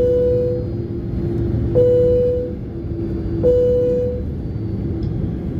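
Cabin chime of an ANA Boeing 767-300ER ringing three times, a single ding every second and a half or so, each fading out within a second. It sounds over the steady rumble of the airliner's cabin.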